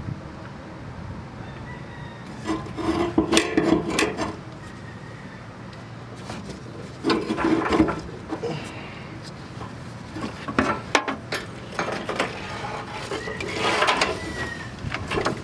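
Scraping and rubbing in four separate bursts of a second or so each, over a steady low background noise.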